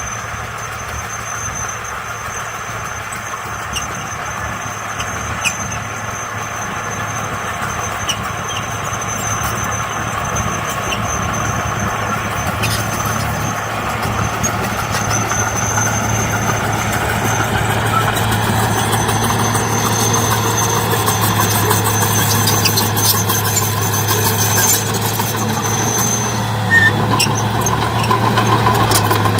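Heavy diesel construction machine engine running steadily and growing gradually louder, with scattered clanks and a high squeal over it.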